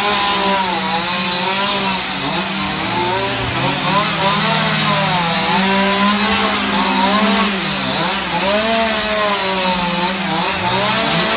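Chainsaws carving wood, at least two running at once: one holds a steady speed while another's revs repeatedly rise and fall as it cuts.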